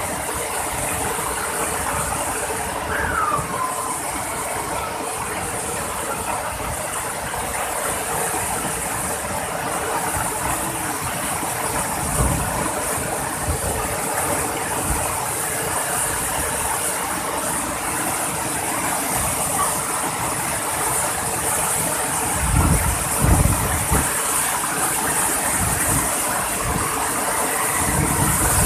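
Steady rush of falling water from a waterfall, with a few low thumps.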